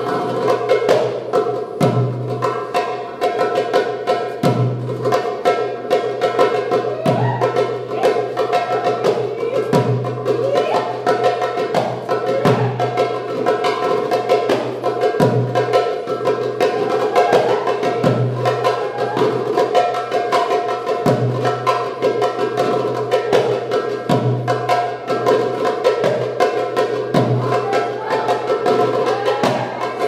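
Darbuka (Egyptian tabla) played by hand in fast, dense strokes and rolls for a belly-dance drum solo. Under it runs a steady melodic line with wavering held notes, and a deep bass beat comes about every two and a half seconds.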